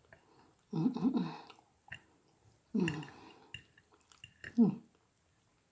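A woman eating sweet potato pie makes three short hummed 'mmm' sounds of enjoyment, each sliding in pitch, with faint mouth clicks and chewing between them.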